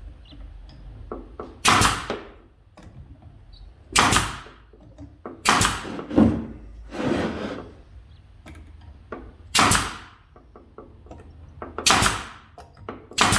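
Nails being driven into cedar fence boards to fasten the back of a birdhouse: about eight sharp, separate strikes, one every second or two.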